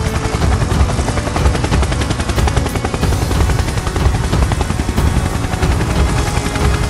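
Helicopter flying, its rotor blades chopping in a fast, even beat over engine noise, loud and continuous.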